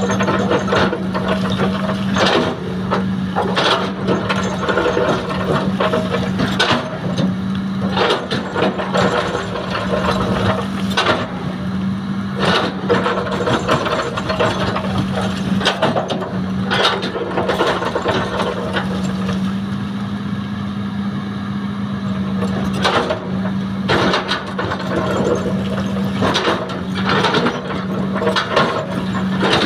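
Hitachi excavator working at a steady engine hum, with frequent irregular metallic clanks and knocks from the machine's moving parts as it digs and loads soil.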